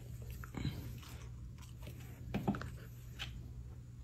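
German Shepherd puppy gnawing the wooden corner of a side table: a few short, crunching bites of teeth on wood, the clearest about two and a half seconds in.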